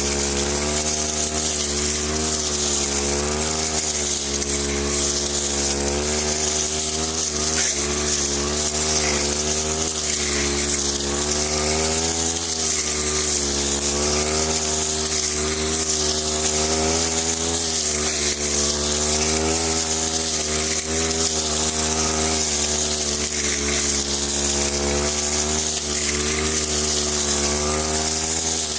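Brush cutter engine running continuously, its pitch wavering slightly up and down.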